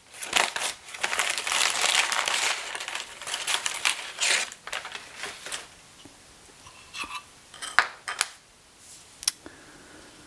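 Brown wrapping paper crinkling steadily as it is pulled off a wooden molding plane, for about the first six seconds. Then a few sharp clicks and light knocks as the wooden plane and its wedge are handled and the wedge is set down, the loudest two near the end.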